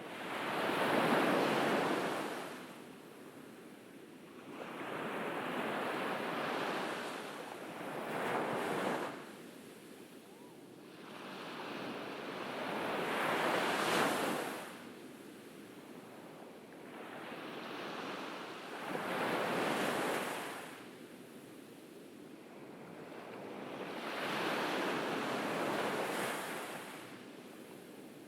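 Ocean waves breaking and washing up a beach. The surf swells and fades in repeated surges every four to six seconds.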